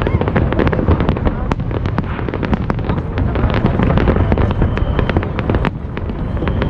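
Aerial fireworks shells bursting in rapid succession: a dense, continuous barrage of bangs and crackling, several reports a second.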